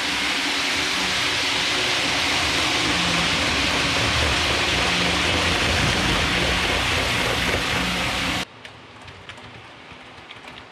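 Hornby OO gauge model APT train running past on layout track: a steady loud rush of metal wheels on rail with a low motor hum. About eight seconds in it cuts off abruptly to a much quieter background with faint clicks.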